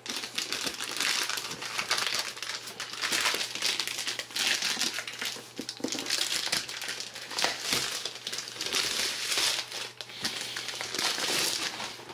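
Plastic wrapping being crinkled and pulled at by hand while being worked open, a continuous irregular crackling rustle that swells and eases over and over.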